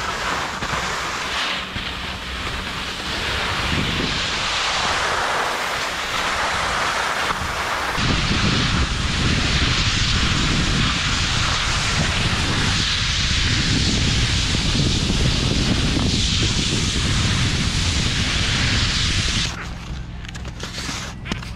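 Skis hissing as they slide over snow, with wind rumbling on the microphone from about a third of the way in; the noise drops off suddenly near the end as the skier stops.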